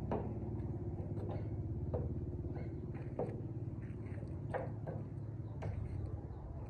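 Sharp metallic clinks and knocks, a few each few seconds at irregular spacing, as metal parts are handled inside a steel machine housing, over a steady low motor-like drone.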